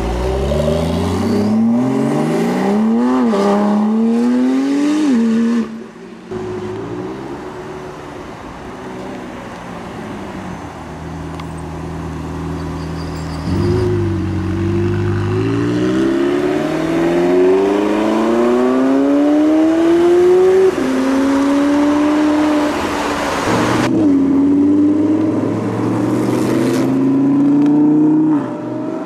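Supercars accelerating hard away, their engine notes climbing in pitch and dropping back at each upshift: first a Porsche 911 Turbo's twin-turbo flat-six, then, after a steadier lower engine note, a McLaren's twin-turbo V8 pulling through several gears.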